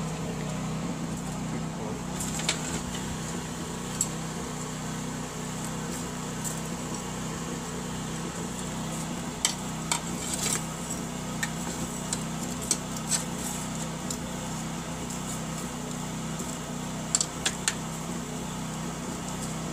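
Metal poker and tongs clinking and scraping in the coals of a blacksmith's forge, about ten scattered sharp clinks over a steady low hum.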